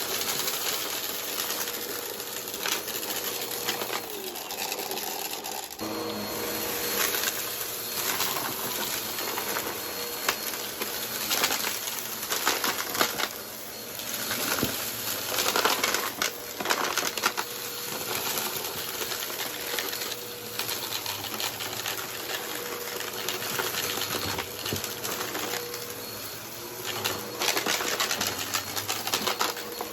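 Vacuum cleaner running on carpet, with a steady motor hum and frequent sharp clicks and rattles of dirt and grit being sucked up. The motor's tone changes slightly about six seconds in.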